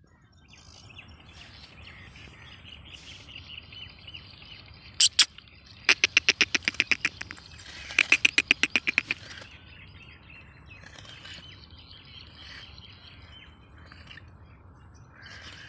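Caged francolin (teetar) calling: two sharp loud notes about five seconds in, then two quick runs of about ten ringing notes each. Small birds chirp faintly throughout.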